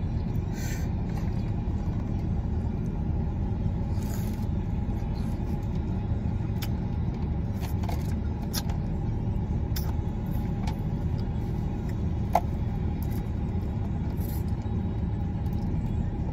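Steady low rumble inside a car cabin with the engine idling, with scattered small clicks and rustles and one sharper click about twelve seconds in.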